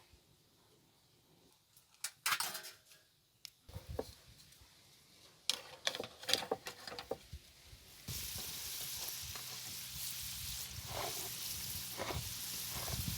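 A few scattered clinks and knocks of cooking utensils, then about eight seconds in a steady sizzle starts as food begins frying in a hot pan.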